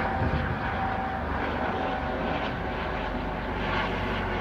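US Coast Guard helicopter flying overhead, its engine and rotor running steadily with a faint whine, over the wash of heavy surf.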